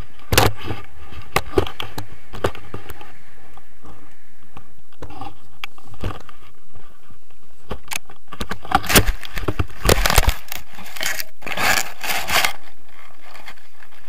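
Knocks, rattling and scraping right at the camera as a tandem paraglider harness touches down and slides into the grass. The densest, loudest scraping comes in the second half.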